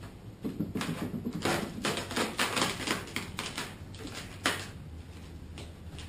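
Aluminium foil sealing tape crinkling and crackling as it is handled and pressed into a corner of the foam insulation board, a dense run of crackles and clicks lasting about four seconds and ending with one sharper click.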